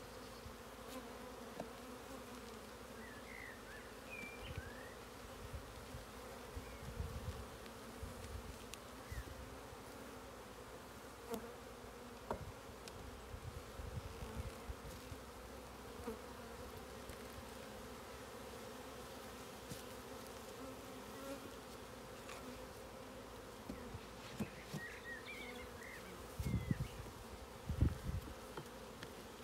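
Honeybees from an open hive humming steadily, with a few low thumps near the end.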